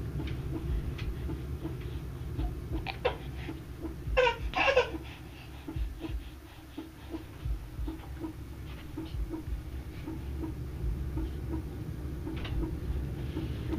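Baby's short, high-pitched squeaks, a few of them about three to five seconds in, over a low steady hum.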